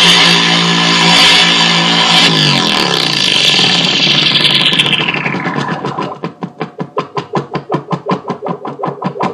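Electronic dance music played through a loudspeaker driven by a homemade amplifier. Over a few seconds the treble slides steadily away, and the music then breaks into a fast, even pulsing, about five beats a second.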